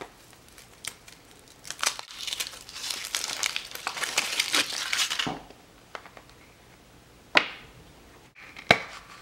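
Foil wrapper crinkling as it is peeled off a hollow chocolate egg, then two sharp cracks near the end as the chocolate shell is broken open around the plastic toy capsule.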